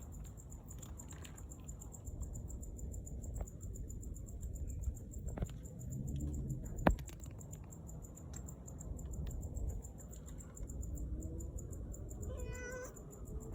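A cat meows once, briefly, near the end. A sharp click about halfway through is the loudest sound, over a steady low rumble.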